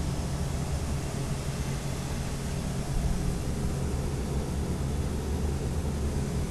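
Isuzu 4JJ1X four-cylinder diesel engine of a Multiquip DCA70 generator running steadily, a constant low drone.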